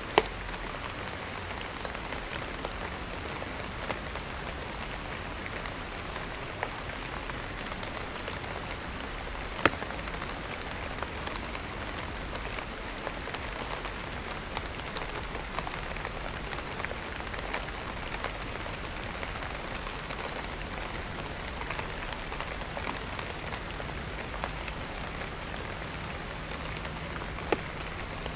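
Steady rain falling: an even hiss with scattered drops, and a sharper tap about ten seconds in and another near the end.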